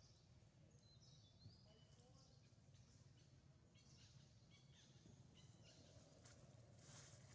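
Near silence: faint forest ambience with scattered short, high bird chirps.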